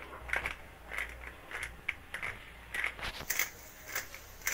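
Grinder-cap pepper bottle being twisted by hand, crushing whole black peppercorns: a gritty crunch with each twist, about two a second.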